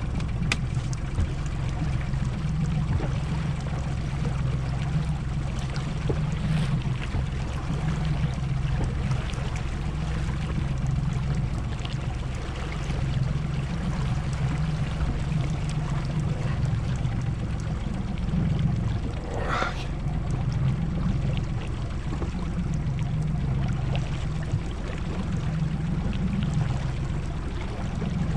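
Boat engine running steadily, with running water along the hull.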